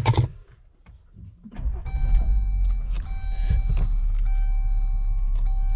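2018 Jeep Wrangler JL's engine starting about a second and a half in and then idling with a steady low rumble. Over it a steady high electronic tone from the vehicle sounds, broken briefly about once a second.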